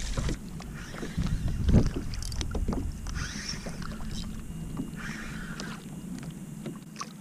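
A plastic fishing kayak sitting on open sea water: a low wind rumble on the microphone, water sounds against the hull and a few small knocks, with the rumble easing off near the end.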